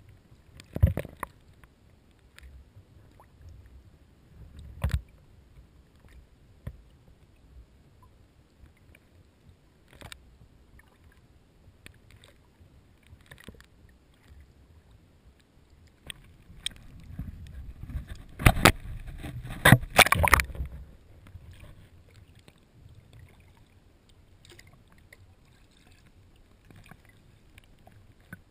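Inflatable kayak being paddled, heard muffled through a sealed waterproof camera housing at the waterline: scattered knocks and water noise, with a louder few seconds of splashing and sharp clicks about two-thirds of the way in.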